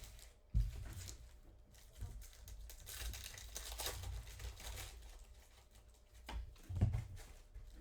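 Plastic and cardboard trading-card packaging crinkling and tearing as a box is opened, louder about three to four seconds in, with a couple of soft thumps.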